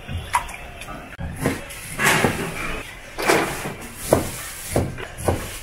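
Kitchen knife chopping through soft food onto a plastic cutting board: a run of uneven knocks, roughly one every half second.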